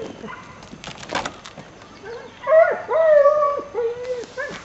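An animal calling: a run of loud pitched calls from about halfway through to near the end, several dropping sharply in pitch. A few short clicks come about a second in.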